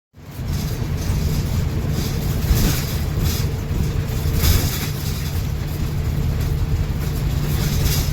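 Steady rumble of road and engine noise heard from inside a moving vehicle, swelling briefly twice.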